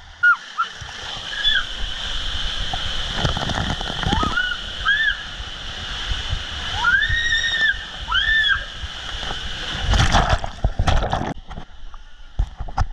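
Water rushing and sloshing through an enclosed water-slide tube under a sliding rider, with several short high yells that rise and fall in pitch. A loud splash comes about ten seconds in as the run ends, then the rushing stops.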